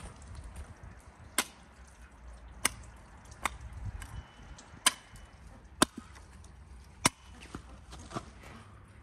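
Axe chopping a raw leg of lamb: six sharp blows roughly a second apart, then two lighter ones near the end.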